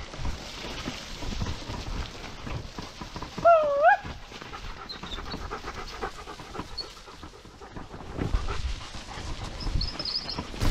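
Mountainboard wheels rolling over a rough, wet dirt trail: a steady rumble with irregular rattles and knocks. About three and a half seconds in, a short wavering high-pitched call, the loudest sound, dips and rises for about half a second.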